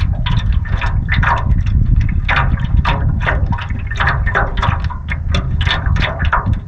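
Small waves slapping and splashing against a canoe's bow in a quick, irregular patter of several splashes a second, over a steady low rumble of wind buffeting the microphone.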